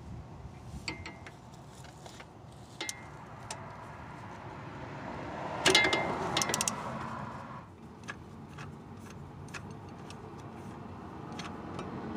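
Ratchet wrench turning a 5/8-inch socket on long extensions to loosen a starter mounting bolt: scattered clicks and metal clinks, with a louder flurry of quick clicks about six seconds in.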